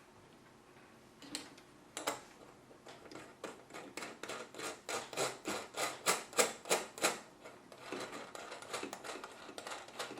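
Quick small clicks and taps of the four mounting standoffs for a Gammaxx 400 CPU cooler being screwed by hand, finger tight, onto the backplate screws through the motherboard. A couple of single clicks come first, then a dense run of about three to four a second, thinning out near the end.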